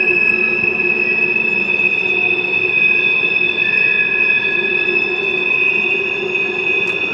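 Freight train's coal hopper cars rounding a sharp curve, their wheel flanges squealing against the rail in a steady high-pitched screech of several held tones over the rolling noise of the wheels.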